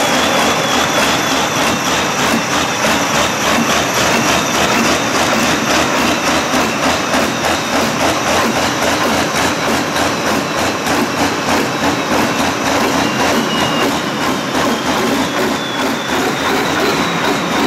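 Diesel engines of pulling tractors running loud and hard, with a steady, rapid pulsing from the exhaust.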